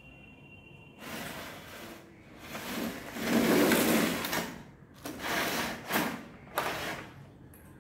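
Handling noises from unboxing a drill kit: a run of rustling, scraping bursts of a second or two each, the longest and loudest in the middle, then several shorter ones.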